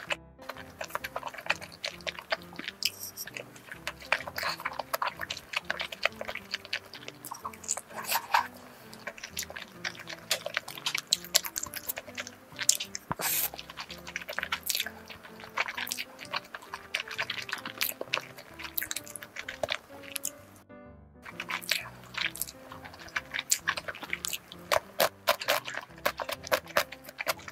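Close-up eating sounds: chewing, smacking and slurping of saucy instant noodles and soft steamed dumplings. A steady background music track plays underneath, and everything cuts out briefly about two-thirds of the way through.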